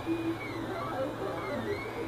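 3D printer's stepper motors whining as the print head moves around a ring-shaped part: short pitched tones that keep changing note, with a high tone sweeping up and down in repeating arcs, over a steady low hum.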